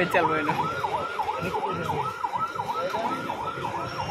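Electronic siren in a fast rising-and-falling yelp, about three cycles a second, steady throughout, with faint voices underneath.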